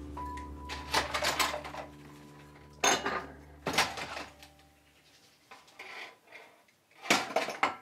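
Dishes and cutlery clattering in several short bursts as they are handled at a kitchen table. Under them runs a low sustained music drone that fades out about five seconds in.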